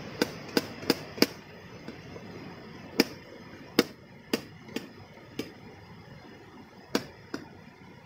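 Kitchen knife chopping on the lid of an aluminium mess tin: the blade knocks sharply on the metal, four quick strokes in the first second and a half, then single strokes spread out over the rest.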